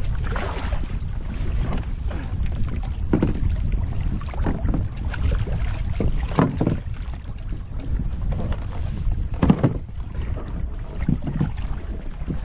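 Wind rumbling on the microphone over water around a sea kayak, with short, irregular splashy noises.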